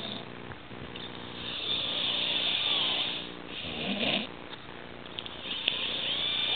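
A passed-out drunk man snoring loudly, in several long breaths one after another.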